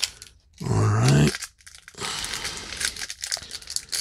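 A short wordless vocal sound, rising in pitch, about a second in. Then, from about two seconds in, the crinkling of a foil baseball card pack wrapper as it is torn open and handled.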